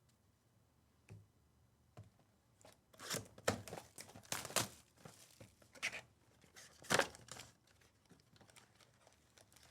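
Trading-card pack wrapper being torn open and crinkled: a few short rips and crinkles, loudest about three to five seconds in and again around seven seconds, after a couple of soft ticks.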